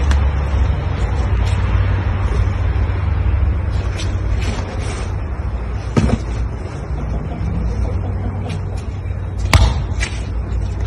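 Steady low rumble with a few sharp knocks; the loudest come about six and about nine and a half seconds in.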